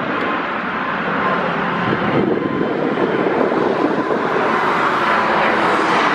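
Bombardier CS100 airliner's geared turbofan engines passing low overhead: a steady jet roar with a faint steady whine, swelling a little louder after about two seconds.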